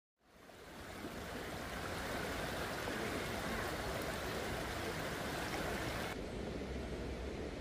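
A river flowing, a steady rush of water with a low rumble underneath, fading in over the first second. About six seconds in the higher hiss drops away and a softer rush is left.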